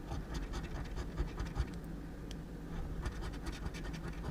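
A scratch-off lottery ticket being scratched in quick repeated strokes, rubbing off the coating.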